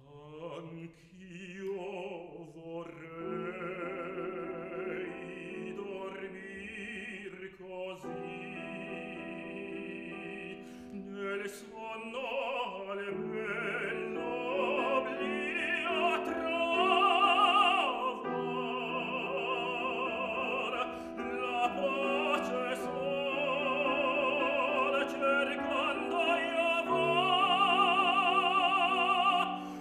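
Tenor singing in operatic style with a wide vibrato, accompanied by a grand piano. The voice grows louder toward the middle and again near the end.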